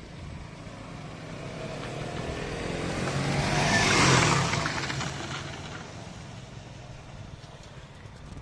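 KTM Duke motorcycle engine passing by. It grows louder as the bike approaches, is loudest about four seconds in as it goes past close, then fades as it rides off.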